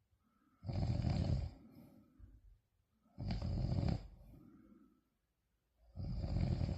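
Loud snoring: three long snores about two and a half seconds apart, each followed by a quieter tail before the next.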